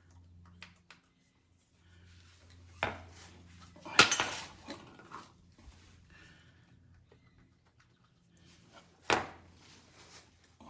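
Skid steer undercarriage rollers being handled and set down, clinking and knocking against one another. Three sharp knocks stand out, near 3 s, at 4 s (the loudest, followed by a few smaller clinks) and near 9 s, with quieter handling sounds in between.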